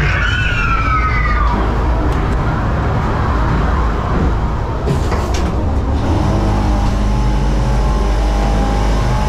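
Ghost train ride car rumbling steadily along its track, with a high squeal falling in pitch in the first second or so and a few sharp knocks about five seconds in.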